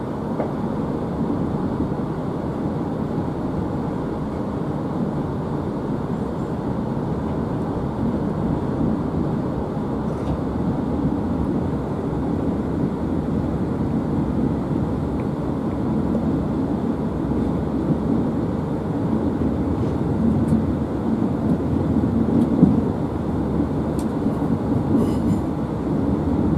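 Steady rumble of a moving diesel passenger train heard from inside the carriage: wheels and running gear on the track, with a few faint clicks.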